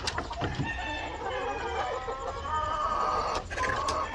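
Chickens clucking, with short calls and some longer drawn-out ones, and a few faint clicks.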